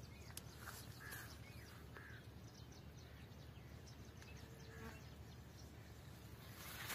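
Faint outdoor ambience: a low, steady background noise with a few soft bird chirps about one and two seconds in, and light scattered ticking.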